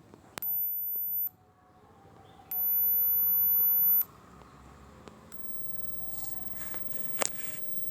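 Two blasts of a very high-pitched, steady electronic tone played as an annoying sound effect, the first about a second long and the second, louder, about a second and a half. A sharp click sounds near the end.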